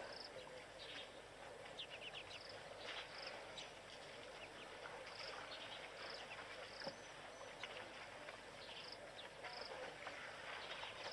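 Faint natural ambience: a short high chirp repeating about once or twice a second, with scattered brief bird calls over a steady low hiss.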